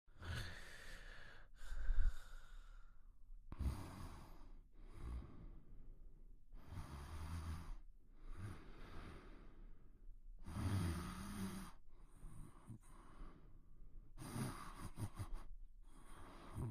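Quiet snoring: a sleeper's breaths, in and out one after another about every second and a half, some carrying a low rattling snore.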